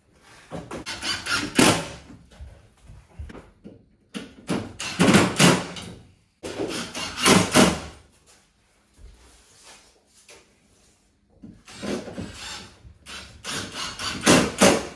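Bursts of knocking and scraping on wood and board, each lasting a second or two, with short quiet gaps between them.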